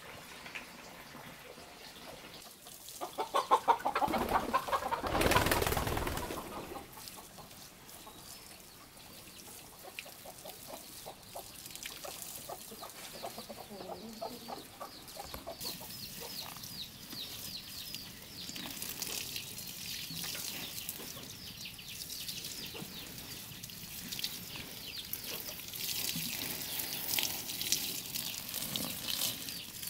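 A chicken calls loudly for about three seconds near the start. Later, water sprinkles steadily from a plastic watering can's rose onto soil and young plants.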